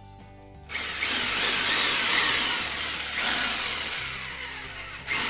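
Corded jigsaw motor running free with no blade load, switched on with a sudden start about a second in, easing off and picking up again, then stopping and restarting near the end. It runs again now that the broken motor wire has been soldered back on.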